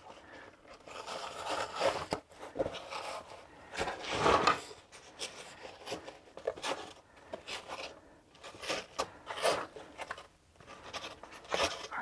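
Hands rubbing and smoothing the fabric of a small backpack laced with elastic shock cord: a string of irregular rustles and scrapes, the strongest about four seconds in.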